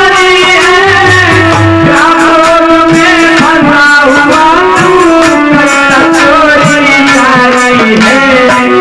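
Devotional bhajan music: a male voice singing long held notes over instrumental accompaniment, with drum strokes underneath.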